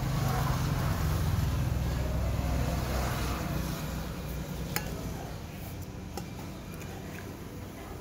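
Low engine rumble, loudest in the first half and then fading, with a single sharp tap about five seconds in.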